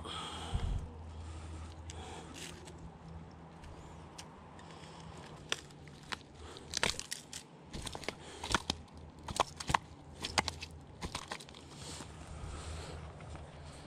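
Fishing pliers and a hard plastic lure's hooks clicking and scraping as the hooks are worked free of a snook's mouth: a scattered run of sharp clicks, thickest in the middle of the stretch.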